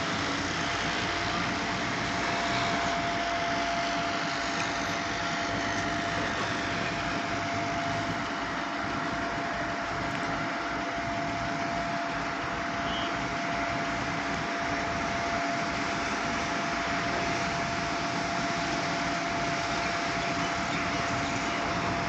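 Truck-mounted concrete pump running steadily, a constant whine over an even mechanical noise.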